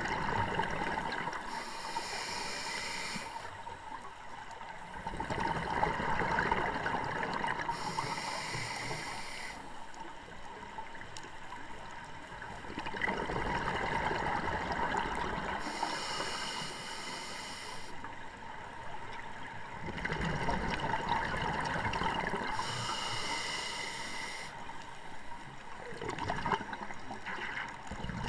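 Scuba diver breathing through a regulator underwater: four slow breaths, each a hiss of inhaled air followed by a rumble of exhaled bubbles.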